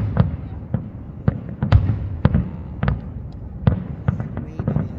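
Aerial fireworks shells bursting in an irregular rapid series, about two sharp bangs a second, over a continuous low rumble.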